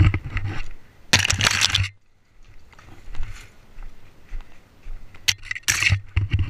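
Footsteps crunching over stony, dry ground and brush. Two loud crunching bursts come in the first two seconds, then quieter scuffing, then a few more crunches near the end.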